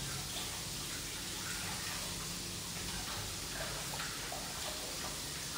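Kitchen faucet running steadily into the sink as something is rinsed under it.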